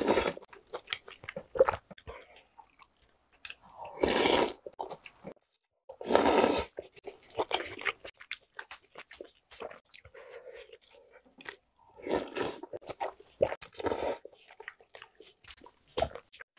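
Close-miked eating of spicy soft-tofu soup with chewy jjolmyeon noodles: several loud slurps of noodles and broth, each about half a second to a second long (near the start, about 4 s and 6 s in, and again around 12 to 14 s), with wet chewing and small mouth clicks between them.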